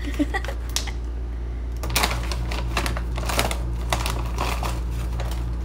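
Plastic snack bag crinkling and rustling as a hand reaches in and handles it, in quick irregular crackles that grow busier about two seconds in.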